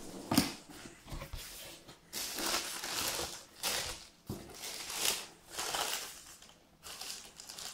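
Tissue paper rustling and crinkling in a series of bursts as it is pulled back inside a cardboard shoebox, with the handling of the box lid.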